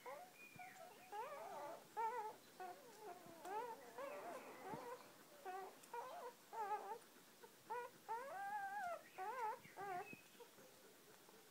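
Litter of newborn deerhound puppies squeaking and whimpering while they nurse: many short, high, wavering cries, often overlapping one another.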